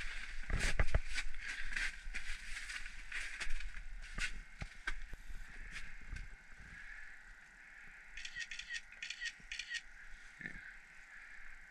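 Handling noise in an ice-fishing shelter: rustling of a winter jacket and crunching on the snowy floor, busiest in the first few seconds. About eight seconds in comes a quick run of about eight short high chirps.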